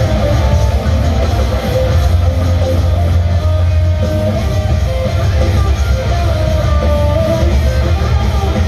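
Heavy metal band playing live: loud electric guitars over bass and drums, heard from the audience in an arena.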